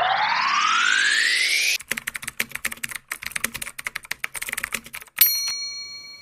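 Edited sound effects: a rising pitched swoosh, then about three seconds of rapid typing clicks, then a single bell ding that rings on and fades.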